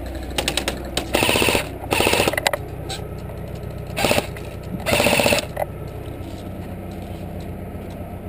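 AK-pattern airsoft rifle firing four short full-auto bursts, a rapid rattle of shots: two about a second in, then two more around four to five seconds in.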